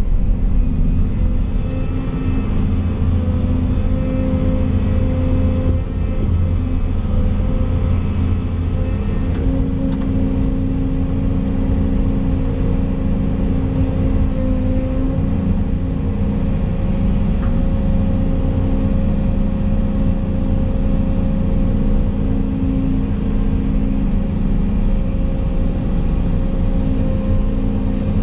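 Volvo EC220 excavator's diesel engine running steadily under load, heard from inside the cab, as the machine lifts and swings a heavy steel trench box.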